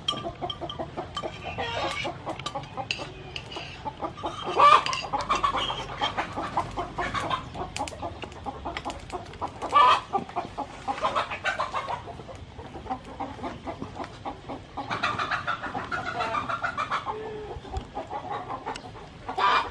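Chickens clucking, with louder calls about five and ten seconds in.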